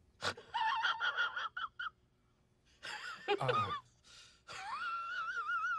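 A man's voice making high-pitched, wavering squeaky whines and gasps: short broken bursts at first, then a longer wobbling note near the end.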